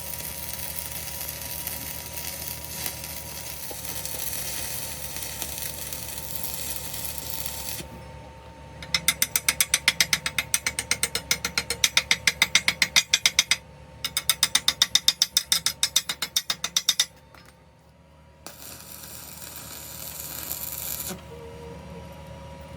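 Rapid, evenly spaced mechanical clicking, about five clicks a second, in two runs of several seconds each with a short break between, over a steady hiss.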